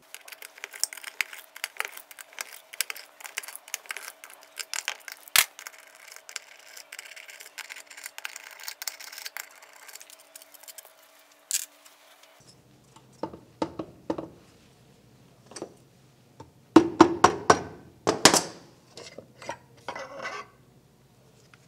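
Socket wrench clicking rapidly as the 12 mm oil pan bolts of a Honda GXV530 engine are loosened and spun out. About twelve seconds in this gives way to scattered metal clinks and knocks, loudest around seventeen seconds in, as the aluminium oil pan is worked loose and lifted off the crankcase.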